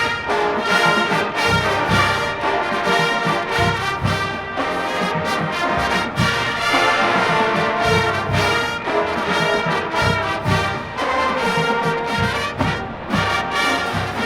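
College marching band playing an arrangement of a pop song: full brass chords from trombones and trumpets over a steady drumline beat.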